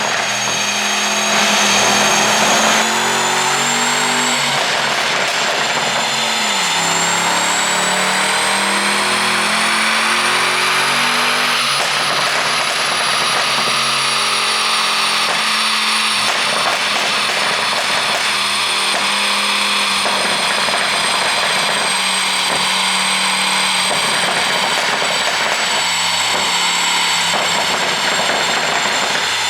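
Mercedes-AMG E63's twin-turbo V8 running continuously, its pitch shifting in steps, over a thin high whine that drifts slowly up and down. No distinct exhaust pops stand out.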